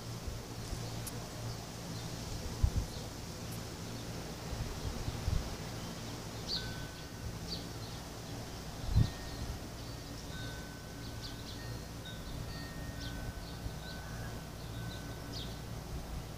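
Background ambience: short, high bird chirps scattered through, over a steady low hum, with two brief low thumps, one about two and a half seconds in and one about nine seconds in.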